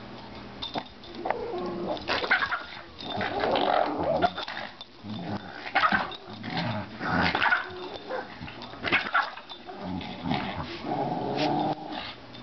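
A little dog growling in play in repeated excited bursts, worked up over a ball.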